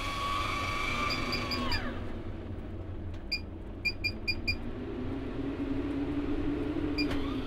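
MaxxAir MaxxFan 7500K roof vent fan being worked from its control panel: the buttons beep with each press, four quick beeps, a single one, a run of five, then one more near the end. The fan motor's whine falls away and stops after the first beeps, and its low hum builds up again over the last few seconds as the speed is changed.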